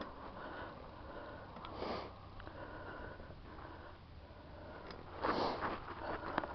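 A cyclist breathing close to the microphone: two short, sharp breaths, about two seconds in and again about five seconds in, over a faint steady low hum.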